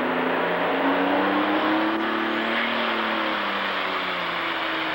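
Super stock pulling tractor's turbocharged diesel engine revving while hooked to the sled, its pitch climbing for about two seconds and then easing back down.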